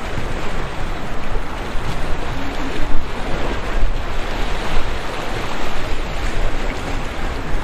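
Wind buffeting the microphone in uneven gusts over a steady rush of waves and surf.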